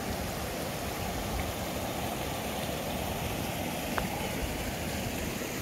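Steady rushing of flowing water from a stream, with one faint click about four seconds in.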